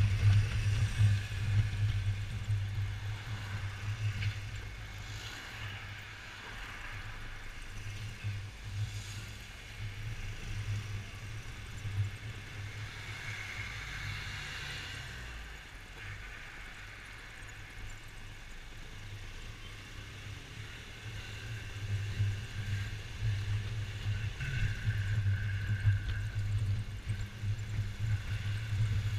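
Yamaha XMAX 250 scooter's single-cylinder four-stroke engine running under way with a steady low hum, softer through the middle and stronger again near the end, over wind and traffic noise.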